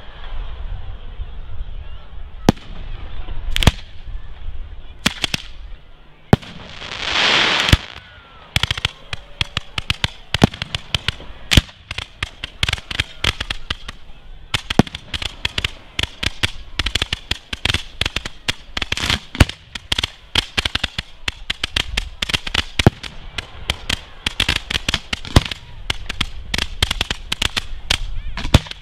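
Display fireworks going off: a few separate sharp bangs, then a rushing hiss about seven seconds in, then a dense run of rapid cracks and bangs from gold comets and shells bursting overhead.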